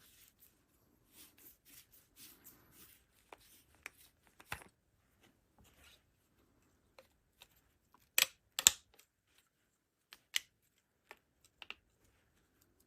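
Hands handling packaging and gear: soft rustling and scraping, then a few sharp clicks and knocks, the loudest two close together about eight seconds in.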